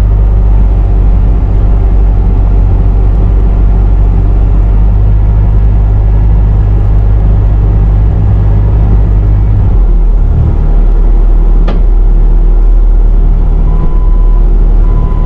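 Bobcat T650 compact track loader's diesel engine running steadily, its note shifting about ten seconds in, with a sharp click shortly after and a few short high beeps near the end.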